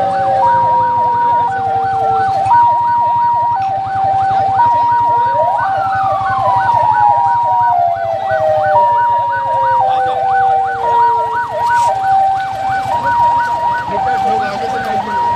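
Several patrol-vehicle sirens sounding at once. One is a two-tone hi-lo siren switching between two pitches about once a second, with a fast warbling siren over it. A wail falls away at the start, and another rises sharply about six seconds in and then slowly winds down.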